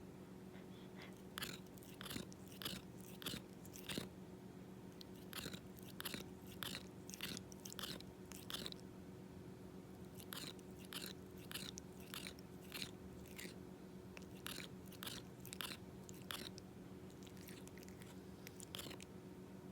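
A cat grinding its teeth: bouts of sharp, gritty clicks, several a second, with short pauses between bouts.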